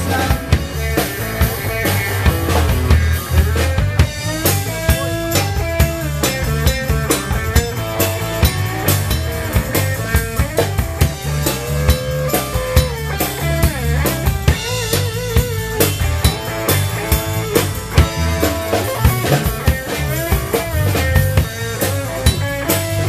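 Live rock band playing: a drum kit keeps a steady beat under electric guitar.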